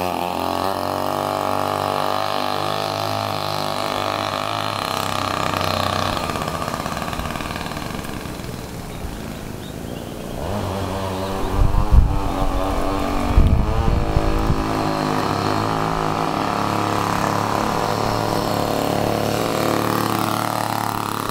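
McCulloch Pro Mac 320 two-stroke chainsaw engine running on a homemade friction-drive bicycle, not tuned properly by the owner's account. It fades as the bike rides off and grows louder again as it comes back, rising in pitch near the end. A couple of loud low thumps come about halfway through.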